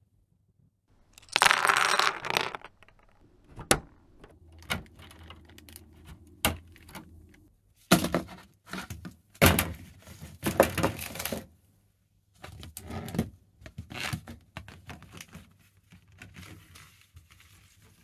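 Hands handling and fitting LEGO Technic plastic parts: scattered clicks and clacks, with several short bursts of rustling, the loudest about a second and a half in and again from about eight to eleven seconds in.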